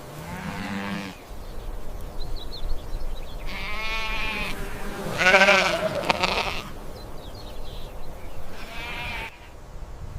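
Bleating livestock, a sheep or goat type call: about four wavering, quavering bleats with short pauses between them.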